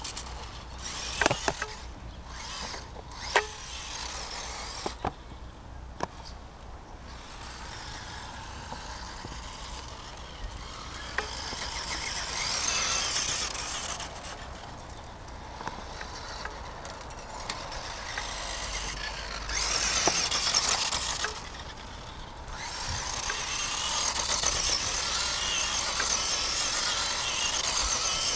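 Electric radio-controlled Tamiya Holiday Buggy driving on hard snow: its motor and tyres make a hissing, scrabbling noise that swells and fades in bursts as it speeds up and slows. A few sharp clicks come in the first few seconds.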